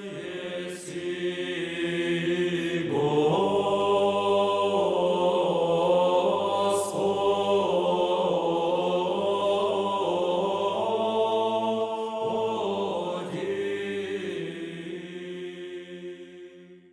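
A choir singing a slow chant in long held chords, swelling about three seconds in and fading out near the end.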